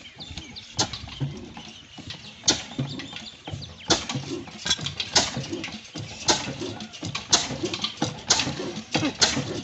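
Old black 26 HP single-cylinder desi oil engine with a heavy flywheel being hand-started: it fires about two and a half seconds in and runs on in slow, sharp exhaust beats that quicken to about two a second as it picks up speed.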